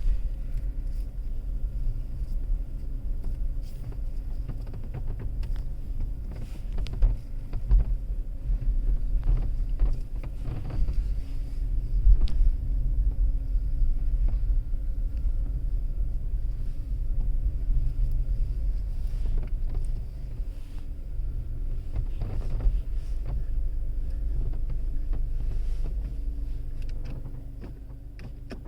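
Skoda Kushaq running at low speed with a steady low hum, overlaid by irregular rattling clicks and knocks: the rattle the car makes while parking.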